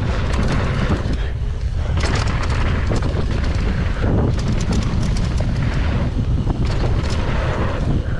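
Mountain bike riding fast down a dirt trail: a steady heavy rumble of wind buffeting the action camera's microphone and knobby tyres on dirt, with frequent rattles and knocks from the bike over bumps.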